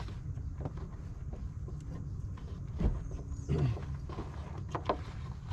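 Scattered clicks and knocks of hands working on a headlight bulb and its plastic housing down inside an SUV's engine bay, with a sharp knock about three seconds in and a short low sound dropping in pitch just after it. A steady low rumble runs underneath.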